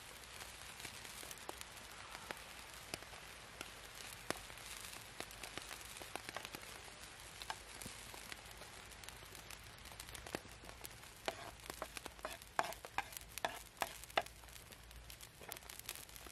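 Food sizzling in a blackened pan over a wood fire, with many sharp knocks and scrapes of a knife and a metal spoon as chopped greens go into the pan and are stirred. A quick run of louder knocks comes a little past the middle.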